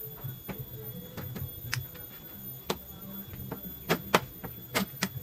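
Irregular light taps and knocks of work on wood, with a few louder sharp strikes about four seconds in and again near the end.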